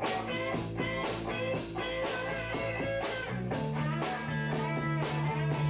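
Rock band music: strummed guitar chords over a steady drum beat of about two hits a second, with a low held note coming in about three and a half seconds in.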